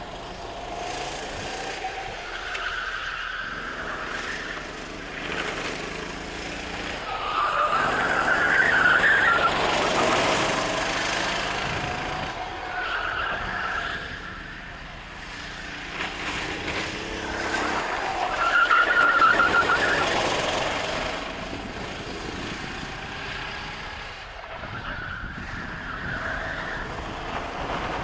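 Sodi RT8 rental kart's single-cylinder four-stroke engine heard from on board through a lap, revs rising and falling, loudest twice, about eight and eighteen seconds in, and easing back between.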